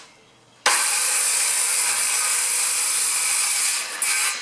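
Corded DeWalt circular saw starting up suddenly about a second in and ripping a wooden board lengthwise, running steadily under load; the noise drops near the end as the cut finishes.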